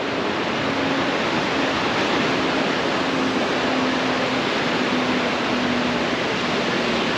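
Steady rushing hiss of ocean surf breaking along the beach, even and unbroken. A faint low hum comes and goes under it.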